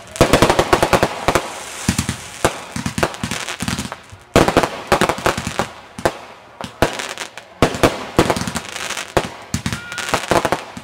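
Aerial fireworks going off in rapid volleys: many overlapping bangs and crackling bursts, loudest in a dense run at the start and again from a sharp report about four seconds in.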